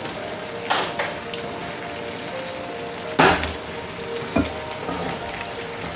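A wooden spoon and skillet knocking against a ceramic bowl of cooked broccoli: three sharp clatters, the loudest with a dull thump about three seconds in, over steady background music.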